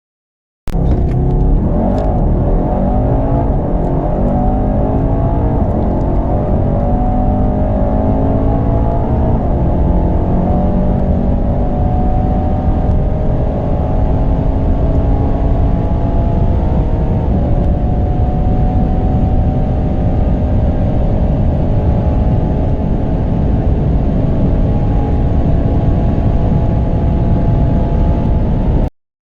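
Twin-turbo V8 performance sedan accelerating hard at full throttle, its engine note climbing through the gears with several shift breaks, each gear rising more slowly as speed builds toward 300 km/h.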